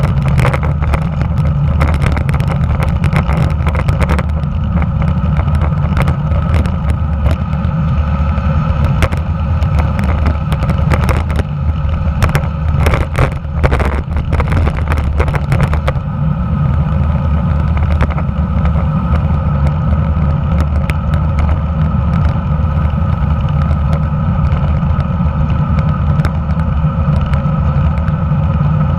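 Wind rushing over a handlebar-mounted camera on a moving road bicycle, with a steady low rumble of tyres on asphalt. Through the first half there is a clatter of short rattles and knocks from rough pavement, thinning out after about sixteen seconds.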